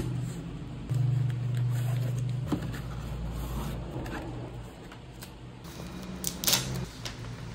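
Packaging being handled: the cardboard box opened and plastic bags crinkling and rustling, with the sharpest crinkle about six and a half seconds in. Low background music plays underneath.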